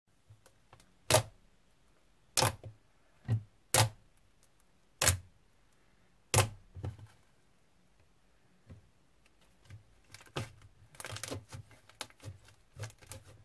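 Glue slime being kneaded and pressed against a tabletop by hand, giving six sharp pops in the first six and a half seconds, then a run of quieter crackles and clicks near the end.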